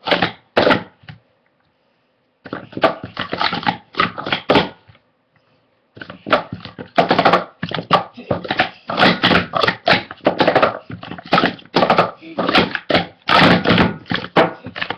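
Plastic sport-stacking cups being stacked up and down at speed on a mat: fast runs of sharp plastic clacks and taps, broken by two short pauses, then a long unbroken run from about six seconds in.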